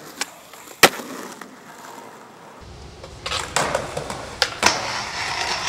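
Skateboard tricks: a sharp snap of the board about a second in, then wheels rolling and scraping on concrete, with several sharp clacks of the board hitting a ledge and the ground.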